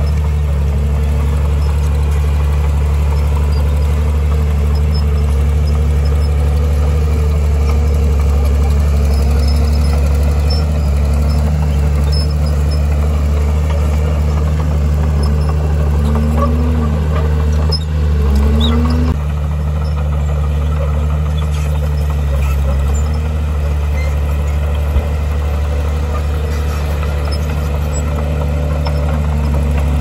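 Heavy earthmoving machine's diesel engine running steadily with a deep hum, its pitch wavering up and down now and then as the load changes.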